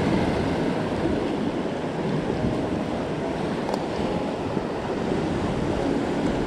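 Ocean surf washing and breaking over the shore rocks: a steady, rushing wash, with wind buffeting the microphone.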